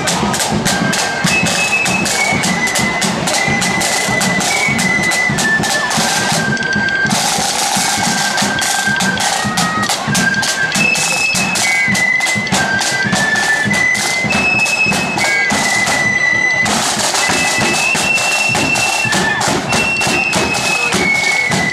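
Marching flute band playing a tune: high flute melody over rapid snare-drum rolls and a steady bass drum beat. The drums drop out briefly twice while the flutes carry on.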